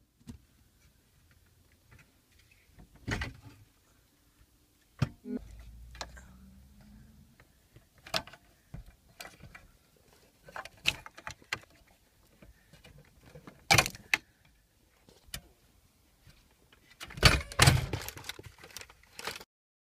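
Plastic clicks, knocks and rattles of a car radio head unit being handled out of the dashboard and its wiring connectors unclipped. Near the end comes a denser burst of louder clattering as the last plug, the aerial lead, is pulled from the back of the radio.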